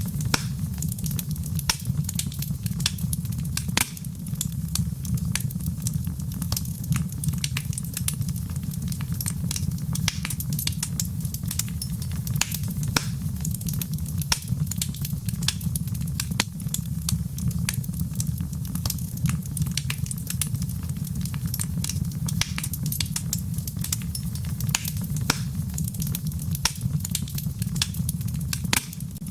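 Wood fire burning in a fireplace, crackling with many small irregular sharp pops over a steady low rumble.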